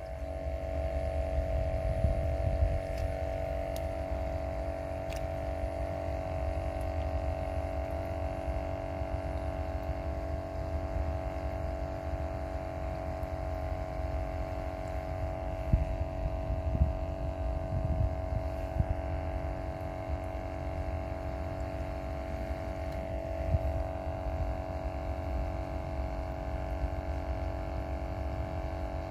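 Steady mechanical hum made of several constant tones, over a low, uneven rumble, with a few faint clicks.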